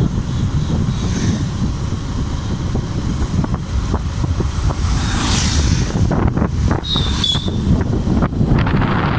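Wind buffeting the microphone on a moving motorcycle, a steady low rushing rumble, with the bike's running noise mixed in.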